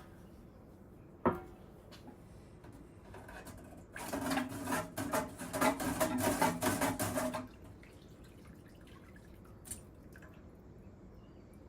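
Water splashing and dripping off a basket of metal parts as it is lifted out of an ultrasonic cleaner's tank, with parts clattering, for about three and a half seconds starting about four seconds in. A single knock comes a little over a second in.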